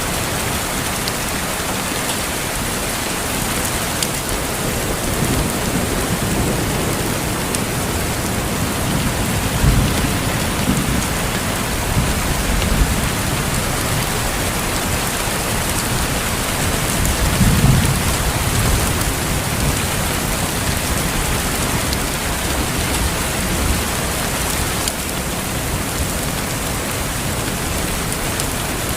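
Steady, heavy rainfall hissing and pattering. Low rumbles of thunder swell up several times, the strongest about two-thirds of the way through.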